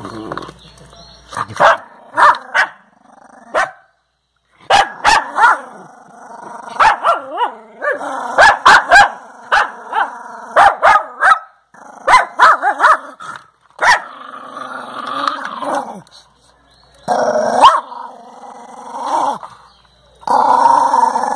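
Small black-and-tan dog growling in rough, wavering runs while gnawing ice in a plastic dish, with many sharp clicks of teeth on ice and plastic. The longest, strongest growl comes near the end.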